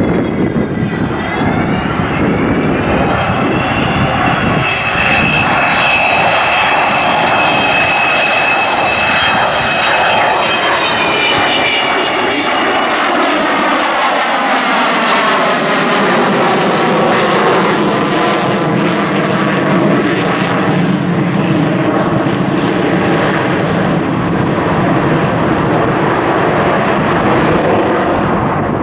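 Avro Vulcan's four Rolls-Royce Olympus jet engines at display power as the bomber passes low overhead: loud engine noise with a high whine that climbs in pitch over the first dozen seconds. After that, a set of tones falls steadily in pitch as the aircraft goes by and draws away.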